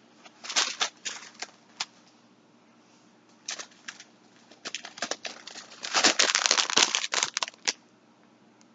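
Packaging crinkling and rustling in irregular bursts as yarn packs are handled, busiest in the second half.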